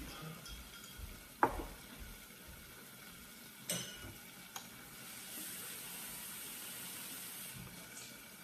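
Meat and chicken skewers sizzling faintly on an electric hotpot's grill plate, a steady soft hiss, with a few sharp knocks at the table, the loudest about a second and a half in.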